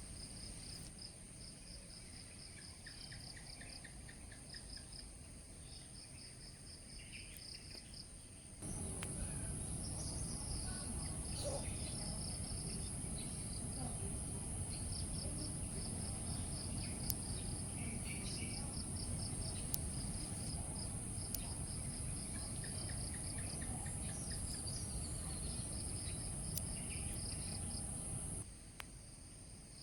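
Insects chirping in rapid pulsed trains over a steady high-pitched insect drone. About nine seconds in, a louder low rumbling noise comes in and stays until near the end.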